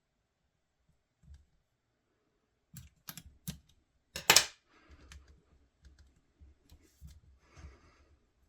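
Hands handling a spotting scope and its mount ring: a few sharp clicks about three seconds in, a louder knock just after four seconds, then soft scattered taps and rustling.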